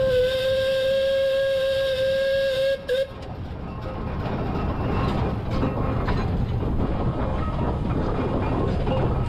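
Steam whistle on the 1916 Cowley steam traction engine sounding one steady note that cuts off sharply about three seconds in. After that the engine keeps running as it travels, with a rumble and light mechanical clatter.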